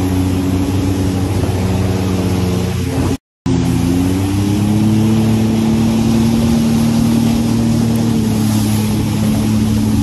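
Jet ski engine running at speed, with a rush of water and wind noise over it. The sound cuts out completely for a moment about three seconds in, then comes back with the engine note rising slightly and holding steady.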